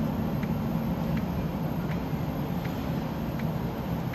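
Steady supermarket background hum and hiss beside open refrigerated display cases, with faint regular clicks a little over once a second.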